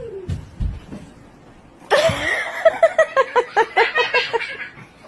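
A few soft low thumps, then about two seconds in a person breaks into rapid, rhythmic laughter lasting about three seconds.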